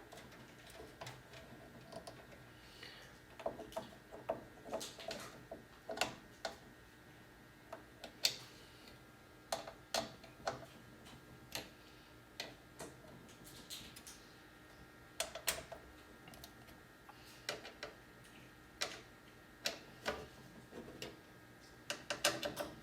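Scattered, irregular small clicks and metallic taps from a hand screwdriver tightening screws that hold a motherboard to the standoffs of a PC case.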